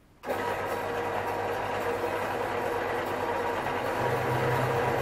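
Small 150 x 100 mm (4 x 6 inch) metal-cutting bandsaw switched on about a quarter second in and then running steadily with no work in it, its electric motor and blade making a steady hum.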